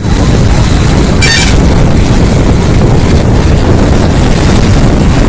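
Steady road and wind noise of a vehicle moving along a highway, heavy in the low range, with a short high-pitched tone about a second in.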